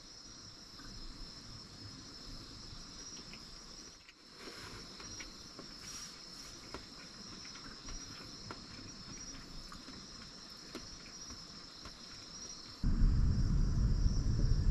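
Insects chirring steadily outside, a constant high chorus, with small scattered clicks of chopsticks and dishes. Near the end a loud low rumble cuts in abruptly and covers everything for about three seconds.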